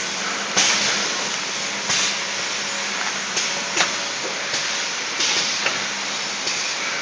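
Automatic cup filling and sealing machine running, a steady mechanical noise broken about six times by short bursts of hiss and sharp clacks from its air-driven sealing and cup-handling parts.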